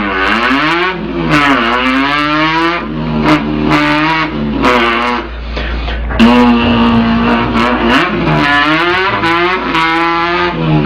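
A man's mouth imitating a car engine accelerating through the gears. The pitch rises and drops back several times like upshifts, and holds one steady drone for a couple of seconds about halfway through.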